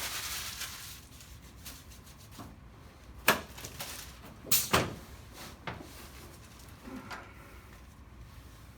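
Clothes and padding rustling and several sharp knocks of a chiropractic treatment table as a person climbs on and settles face down: one knock about three seconds in, a quick pair about a second later, then a few fainter ones.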